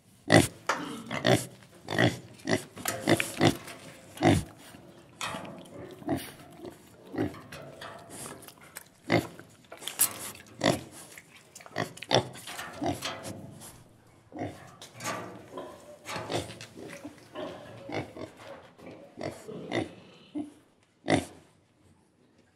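Domestic pigs grunting in a rapid, irregular run of short grunts, with a brief lull about two-thirds of the way through.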